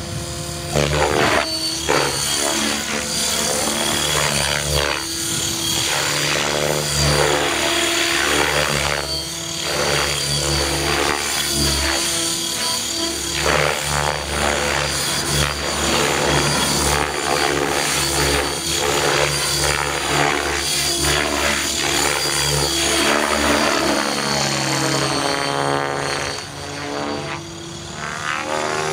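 Electric RC helicopter's motor and rotor whining continuously, the pitch rising and falling as it throws aerobatic manoeuvres and passes overhead.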